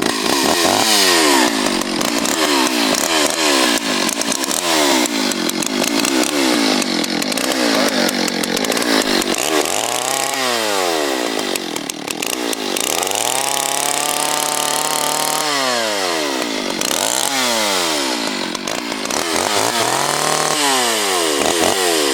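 60 cc two-stroke Stihl chainsaw being revved repeatedly. The engine climbs to high revs and drops back toward idle over and over, and is held at full throttle for a couple of seconds around the middle.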